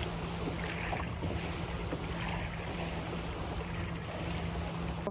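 Wind buffeting the microphone and water noise around a small fishing boat, over a steady low hum.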